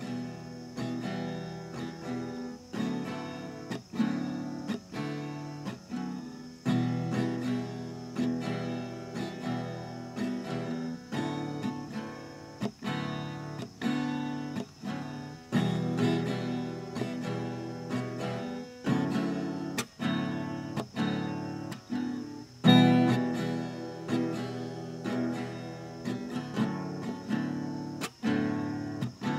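Acoustic guitar strummed in a steady rhythm, chords struck again and again and changing every few seconds, with one harder strum about two-thirds of the way through.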